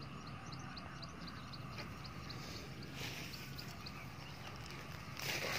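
A small creature chirping over and over, short high chirps at about two or three a second. Rustling swells about three seconds in and again near the end, fitting footsteps through wet grass.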